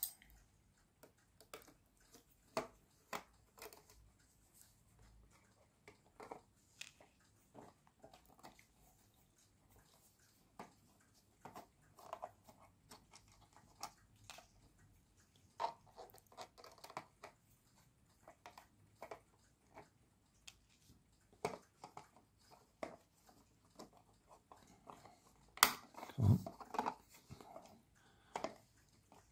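Scattered small clicks, scrapes and taps of a screwdriver and fingers taking the screws out of a plastic star-projector base, with a couple of louder knocks near the end.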